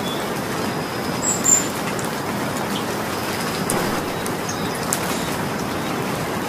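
Steady rain falling, an even hiss, with a few short high bird chirps, the loudest about one and a half seconds in.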